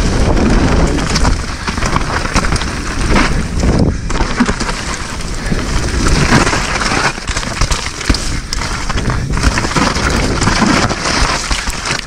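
Mountain bike riding fast down a muddy enduro trail, heard on a mounted action camera: steady wind rush on the microphone and tyre noise, with frequent knocks and rattles as the bike hits bumps.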